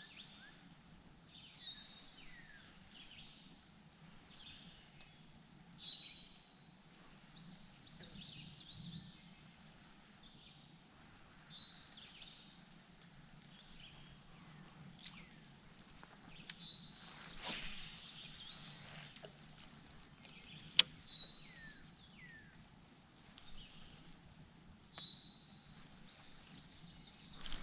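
A steady, high, shrill insect chorus in summer woodland, with short falling whistled calls repeating every second or two and a single sharp click about twenty seconds in.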